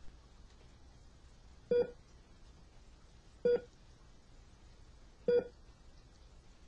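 Three short electronic beeps, evenly spaced just under two seconds apart, each a single clear tone.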